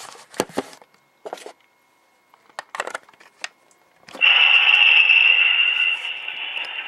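A few light clicks from an HO-scale model locomotive being handled on the track, then, about four seconds in, its QSI Quantum sound decoder switches on and plays a diesel engine sound through the small onboard speaker. The engine sound is loud and steady, easing slightly a little before the end.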